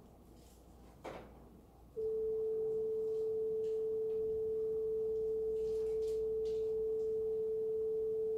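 A pure 440 Hz sine tone, concert A (A4), played back and held steady at one pitch, starting about two seconds in.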